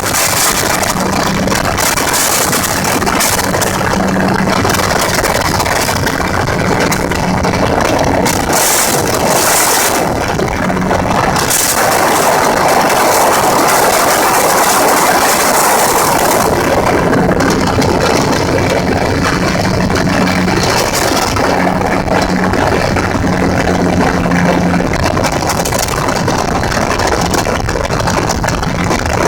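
Gyrocopter engine running steadily, with a loud rushing noise over it and a low hum that comes and goes.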